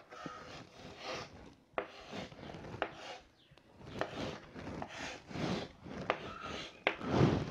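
Chalk writing on a blackboard: a series of short scratchy strokes, with a few sharp taps where the chalk strikes the board.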